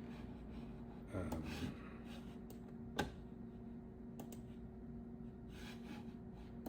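A few short, sharp clicks of a computer mouse button, the loudest about three seconds in, over the steady low hum of the running Macintosh SE/30.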